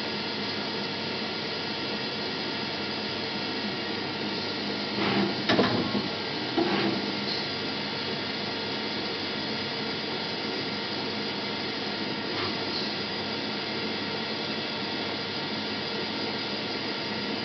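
Mazak QT8 CNC turning lathe running steadily, with a louder burst of mechanical noise about five to seven seconds in.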